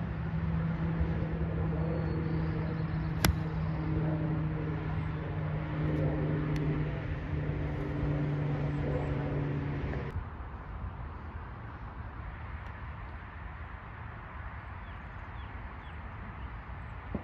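An iron striking a golf ball: one sharp click about three seconds in, over a steady engine drone that drops away about ten seconds in, leaving a quieter outdoor background.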